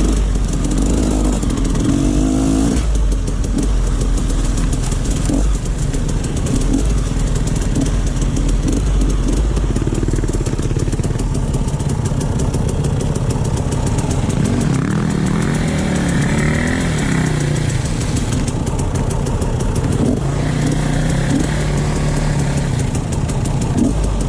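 Off-road dirt bike engine running hard and revving, its pitch rising and falling around two-thirds of the way through.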